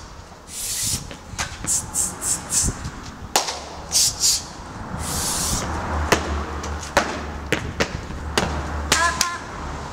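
Percussive intro of an upbeat dance track: crisp hits and short shaker-like hisses in a steady rhythm, with a bass line coming in about three seconds in.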